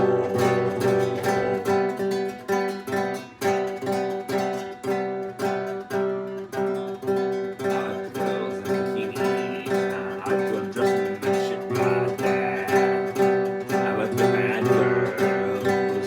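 Acoustic guitar strummed in a steady rhythm, about two to three strokes a second, holding the same chord.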